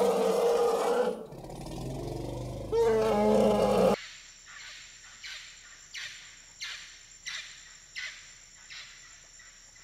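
A deep animal roar, rough at first and ending in a pitched growl, stops suddenly about four seconds in. It is followed by a regular series of short, faint, falling chirps, about one and a half a second, over a thin steady high whine.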